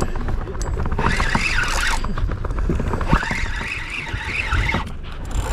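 Fishing reel squealing in two stretches, about a second in and again from about three seconds in, its pitch wavering up and down over rapid clicking.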